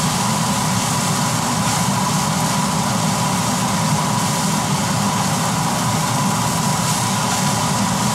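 Steady hiss and low hum of fried rice cooking in a wok on a gas stove as it is stirred, with a faint high whine.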